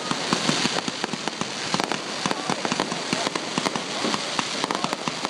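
Fireworks crackling overhead: a dense, steady run of many small sharp pops, several a second, over a continuous hiss, the sound of crackling-star shells bursting.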